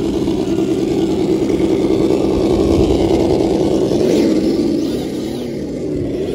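Brushless motor and gear drivetrain of a Traxxas TRX-4 Tactical Unit RC crawler whining steadily under throttle, then rising and falling in pitch with the throttle from about four seconds in.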